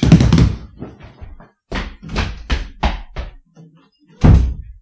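A run of sharp knocks, about four a second, ending in one heavier, deeper thump near the end.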